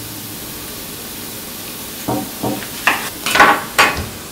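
Partly frozen ground beef sizzling steadily in a frying pan. From about two seconds in, a run of five or six short scrapes as a spatula works the cooked meat off the frozen block.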